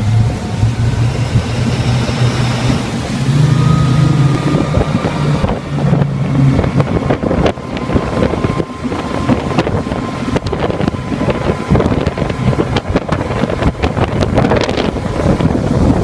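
Triple Mercury Verado 300 outboards running hard, driving the boat up to planing speed. A steady low engine hum is clear for about the first six seconds, then is mostly covered by rushing water and wind buffeting the microphone as speed builds.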